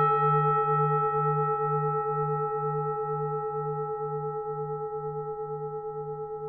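Bronze Vietnamese temple bell (chuông chùa) ringing on after a single strike, its deep hum pulsing about two or three times a second while the ring slowly fades.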